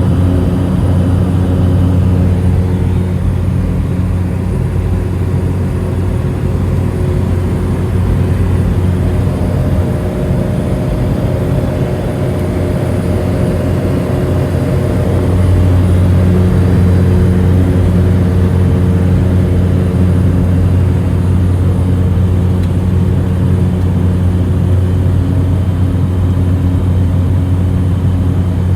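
Cessna Caravan's single turboprop engine running with a steady, deep drone, growing a little louder about halfway through.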